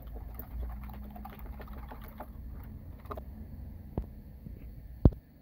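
Balloon whisk beating eggs, sugar and oil by hand in a glass bowl: a quick run of light, irregular clicks and taps that stops about three and a half seconds in. Then a sharp click, and a louder sharp knock near the end.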